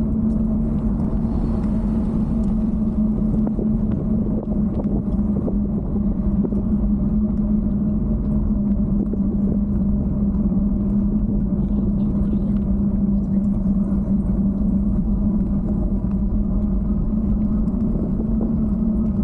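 Steady rumble of wind and riding noise on a bike-mounted camera's microphone, with a constant low hum under it that holds one pitch throughout.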